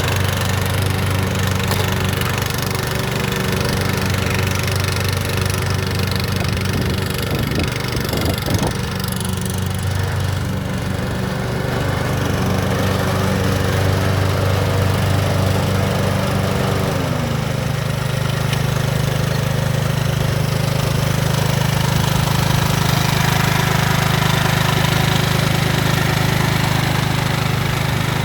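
MTD Gold zero-turn ride-on lawnmower engine running steadily. About two-thirds of the way through its speed changes, and it runs slightly louder after that, with a few brief clicks a little before that point.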